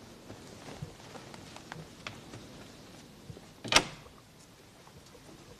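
Faint small clicks and rustles, then one sharp clunk about three and a half seconds in.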